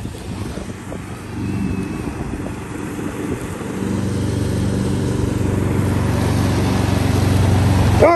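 Husqvarna ride-on lawn mower engine running steadily, growing louder as the mower approaches and loudest as it passes close near the end.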